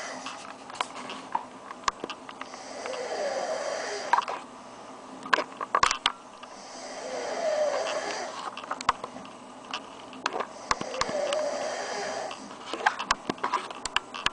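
A sleeping pet snoring in slow, even breaths, one long snore about every four seconds, with a hissing edge and small scattered clicks between the breaths.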